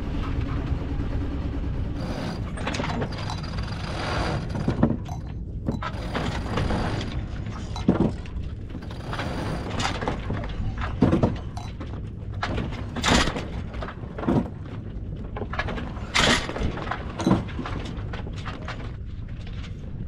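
A sailboat's foresail flogging in strong wind: the loose sailcloth snaps and cracks in loud, irregular slaps every second or few, over a steady low rumble of wind.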